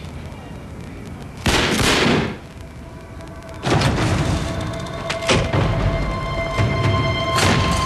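Tense film score with a steady high drone, broken by a loud burst about a second and a half in and by further sharp bangs from about four seconds on.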